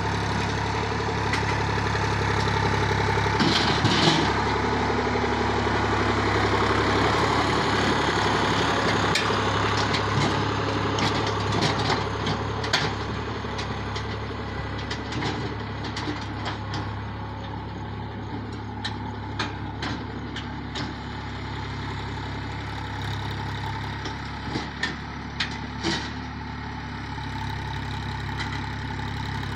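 Massey Ferguson tractor's diesel engine running steadily under load as it pulls a land leveller. The sound eases somewhat about halfway through, and there are scattered sharp clicks in the second half.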